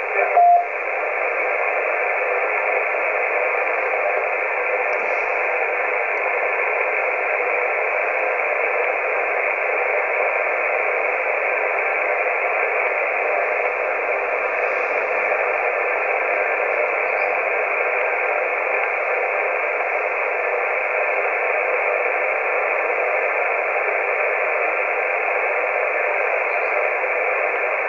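Steady radio static hissing from a CB radio receiver on the 11-metre band, heard through the set's small speaker so it sounds narrow and thin. A short beep sounds right at the start.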